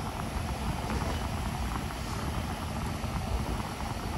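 A small freezer's condensing unit running steadily close up: a Secop (Danfoss) TF4CLX hermetic compressor and its condenser fan, giving a steady low hum with a wash of air noise.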